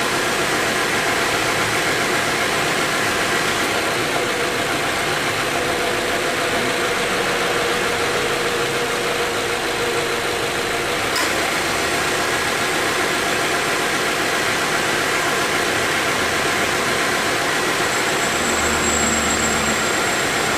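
Subaru XV 2.0 flat-four engine idling steadily with the air conditioning running, a single short click about eleven seconds in. The AC compressor no longer makes its abnormal start-up noise after repair.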